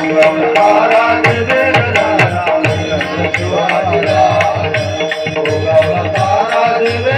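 Instrumental interlude of a Marathi folk-devotional song: a hand-drum beat of low strokes and sharp slaps under a wavering, ornamented melody line.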